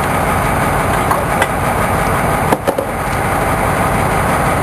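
A boat's engine running with a steady low rumble, with two sharp knocks about a second and a half and two and a half seconds in.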